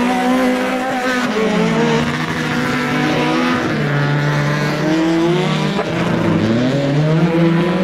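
Several race cars' engines revving together on an ice track, their pitches rising and falling as the drivers accelerate and lift off; one engine drops low about six seconds in and then climbs again.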